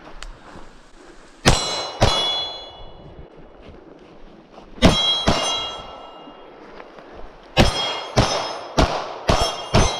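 Gunshots at steel targets: about nine sharp shots, two pairs then a faster string of five near the end, with steel plates ringing after the hits.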